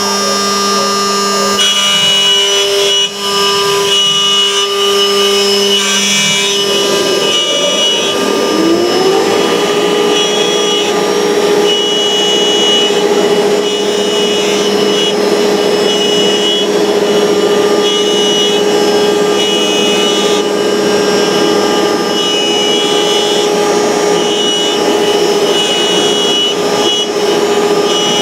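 ShopBot CNC router running with its spindle whining over a steady rushing noise as the bit cuts. About seven seconds in the whine rises in pitch and then holds steady.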